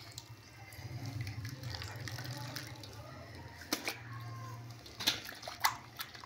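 Water sloshing and splashing as a garment is scrubbed and dunked by hand in a metal basin of soapy water, with several sharp clicks in the second half.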